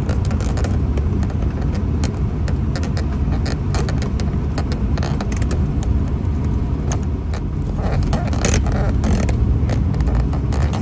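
Vehicle driving on a gravel road: a steady low rumble with frequent small clicks and pops.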